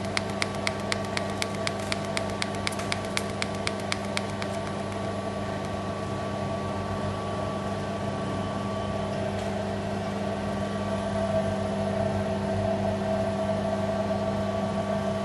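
Robotic TIG welding set running in pulsed-current mode, with a steady electrical hum and a rapid even ticking of about five pulses a second. The ticking stops about four and a half seconds in, and the steady hum continues.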